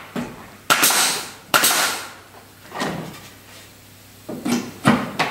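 Pneumatic nail gun shooting nails into pine cladding boards: several sharp shots, each with a short hiss of air, two loud ones about a second in and more near the end.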